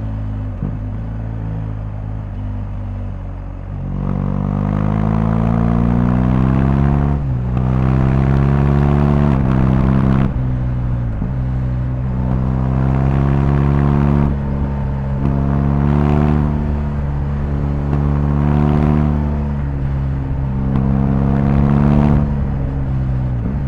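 BMW R1250GS boxer-twin engine under way, running steadily at first, then accelerating through the gears. The pitch rises and drops back at each change, several times in a row.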